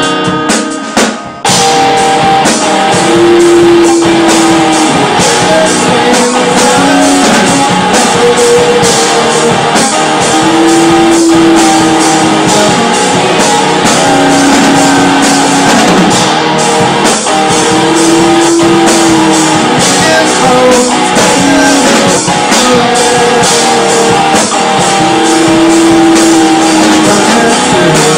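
Live rock band playing electric guitars and a drum kit, with singing. The full band comes in about a second and a half in, and a held melodic phrase comes back about every seven seconds.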